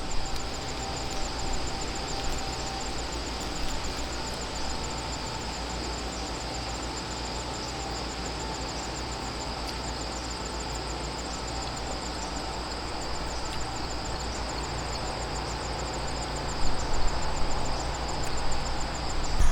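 Steady drone of two portable generators running at a distance, one of them a Westinghouse dual-fuel unit, under a fast, even insect trill.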